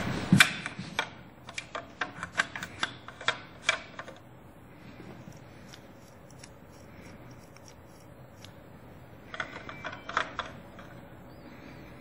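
Hard clear-plastic parts of an Eiffel Tower-shaped humidifier clicking and knocking as they are handled. A rapid run of clicks in the first few seconds, a quieter stretch, then another short cluster of clicks about nine seconds in.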